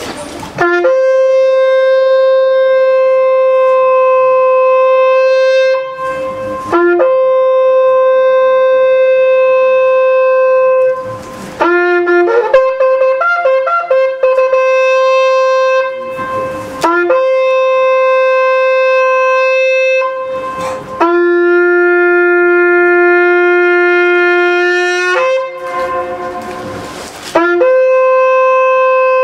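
Shepherd's horn played in long, loud held calls, mostly on one high note, with a short run of quick notes a third of the way through and a lower held note later on. Short breath breaks separate the phrases.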